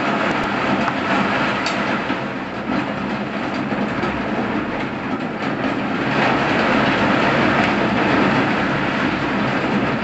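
Heavy rain pouring down in a thunderstorm, a steady rushing hiss that grows a little louder about six seconds in.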